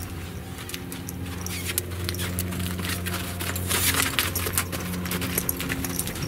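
Saddled two-year-old horse trotting on arena sand on a lead line: scattered hoof thuds and the jingle of saddle and bridle hardware, loudest as it passes close about four seconds in, over a steady low hum.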